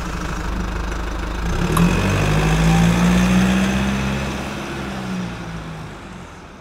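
A vehicle engine running and revving up, its low hum rising and growing loudest a couple of seconds in, then easing off and fading away near the end.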